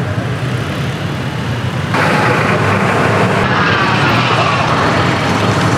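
Outdoor street noise with a motor vehicle running close by: a steady low rumble that grows louder and fuller about two seconds in.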